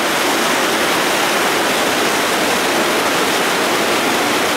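Fast, turbulent river water rushing through a baffled fish pass channel: a loud, steady rush.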